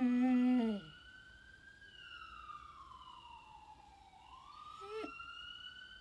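A siren wails faintly, slowly rising and falling in pitch, while a dog gives a louder short howl at the start that drops away in pitch, and a brief falling cry about five seconds in.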